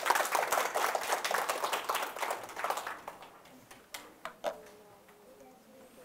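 Small audience of students applauding, the clapping thinning out and stopping about three seconds in, with a few last single claps near four seconds.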